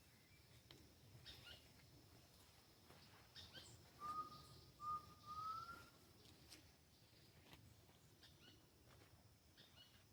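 Faint forest sounds at nightfall. Short chirping calls come about every two seconds over a steady high hum. About four seconds in, a clear whistle sounds in three short notes, the last one rising.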